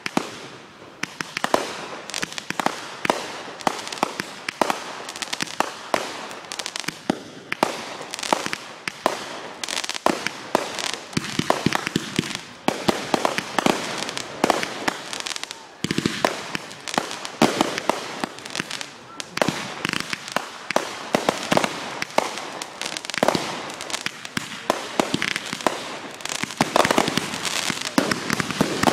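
Consumer fireworks going off: a dense, continuous string of sharp pops and crackles from aerial bursts, easing briefly around 12 and 16 seconds in. Near the end a ground-fired device sends up a column of flame, and the sound grows louder.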